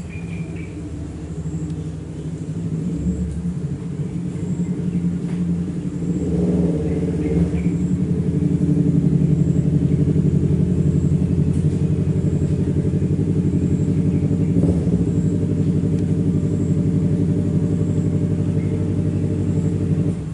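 A steady, loud engine-like hum of several even tones with a fine pulsing texture. It grows louder about six seconds in and cuts off suddenly at the end.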